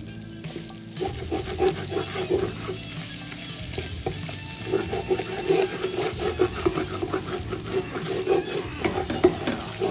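Ground beef frying and crackling in a pot while a wooden spoon stirs it and scrapes the bottom. The meat's liquid has cooked off, so it is frying in its fat and browning.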